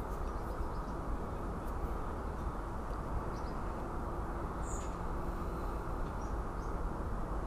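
Steady background noise, a low rumbling hiss, with one faint short high chirp a little past halfway.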